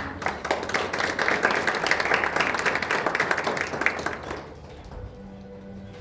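Audience applauding: dense clapping from many hands that dies away about four and a half seconds in.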